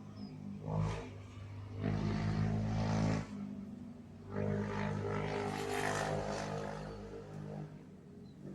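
An engine running nearby with a steady low hum, swelling louder three times: briefly about a second in, then from about two to three seconds, and longest from about four and a half to seven and a half seconds.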